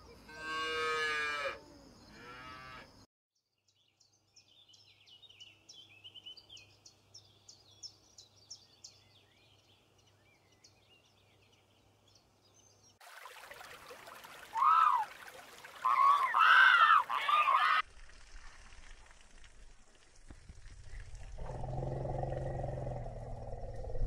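Cattle mooing, two calls in the first three seconds. Faint high chirping follows, then a run of loud high calls rising and falling in pitch in the middle, and a low rumble that builds near the end.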